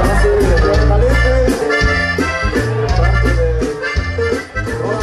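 Live band playing an upbeat dance tune, with a melodic lead line over a steady bass and a regular drum beat.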